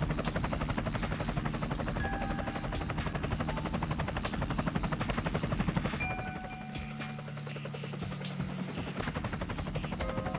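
Helicopter rotor and engine running, with a fast, even chopping beat from the blades. About six seconds in the beat softens to a steadier low hum.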